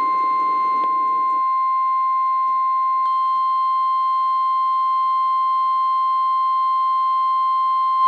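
NOAA Weather Radio 1050 Hz warning alarm tone, one loud, steady, unbroken tone from weather radio receivers, with a fainter higher tone joining about three seconds in. It is the attention signal that comes before a severe thunderstorm warning broadcast.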